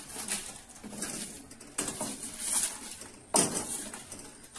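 A wooden spatula scraping dry-roasted bay leaves across and out of an aluminium kadai, in about four separate scraping strokes. The last stroke, about three and a half seconds in, is the loudest.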